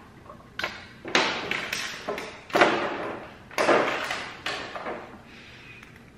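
Knocks and rattles of a plastic tail light housing and its wiring being handled while LED bulbs are fitted into its sockets: about six sharp clunks, each trailing off briefly, the loudest near the middle, dying away about a second before the end.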